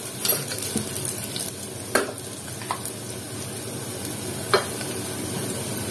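Sliced onions sizzling in oil and ghee in a pressure cooker, stirred with a wooden spatula, with a few sharp clicks over the steady frying. The onions are well fried.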